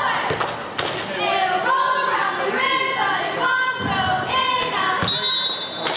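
Gym sounds of a basketball game in play: a run of short high-pitched squeaks and cries with scattered thumps of the ball and feet. About five seconds in, one steady shrill note lasting under a second, like a referee's whistle.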